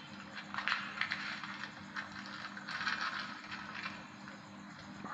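Crinkling rustles of a packet being handled and emptied into a plastic drum, in a few short bouts, over a faint steady hum.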